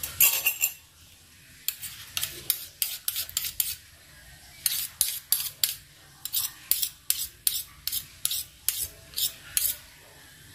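Metal spoon stirring chicken pieces in a wet egg-and-flour batter, clinking and scraping against the bowl in a quick, irregular run of clicks, with a couple of short pauses.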